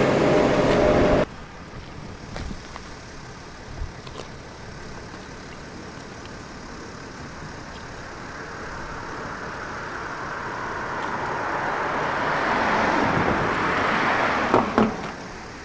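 A car passes on the road, its tyre and engine noise building over several seconds and dying away near the end. Before that, a steady engine hum cuts off abruptly about a second in.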